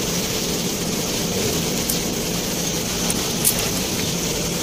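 2010 Toyota Corolla's engine idling steadily, with a light click about three and a half seconds in.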